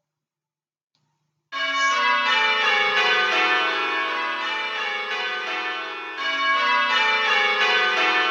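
Computer-simulated change ringing on recorded Worcester Cathedral tower bells, in the Abel simulator with the muffled-backstroke setting, starting about a second and a half in. The handstroke row rings at full level and the backstroke row is softer, because the muffling is only the backstroke turned down, not muffled bells recorded.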